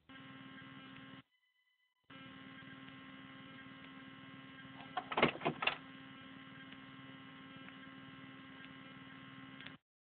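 Steady electrical hum with several tones, cutting out briefly about a second in and again near the end. About five seconds in comes a quick run of sharp clicks, the loudest sound.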